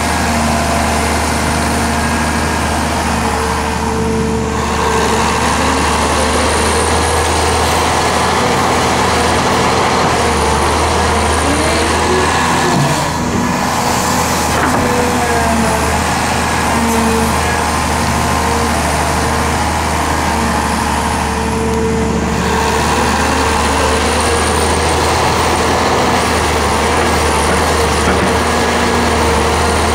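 Hyundai Robex crawler excavator's diesel engine working under hydraulic load, a steady low drone whose pitch rises and falls as the bucket digs sand and the boom swings to load a dump truck.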